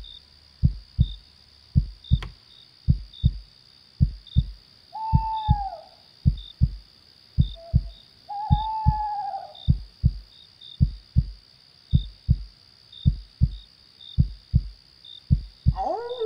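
A heartbeat beating in steady double thumps, about one beat a second, under a continuous high insect drone with small cricket chirps. An owl hoots about five seconds in and again, longer, around eight seconds in. A wolf howl begins near the end.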